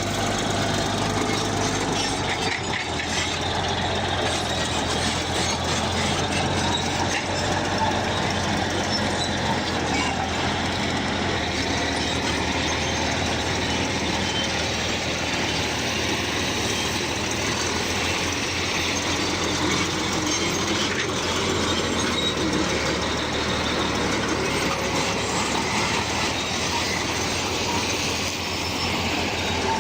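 Bulldozer working: its diesel engine running steadily under the clatter of its steel tracks.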